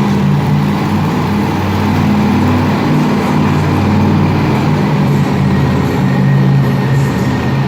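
A large engine running steadily, its sound sitting low, with no revving.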